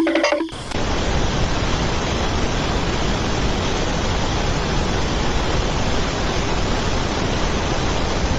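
Music cuts off about half a second in, giving way to a loud, steady rushing noise with no pitch.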